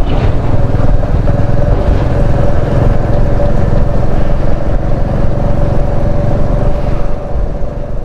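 Motorcycle riding along at steady engine speed, its engine hum holding one even note under heavy wind rumble on the microphone, fading out near the end.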